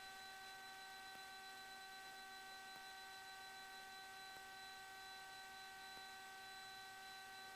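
Near silence on the cockpit intercom audio feed, with only a faint, steady electrical hum made of several held tones.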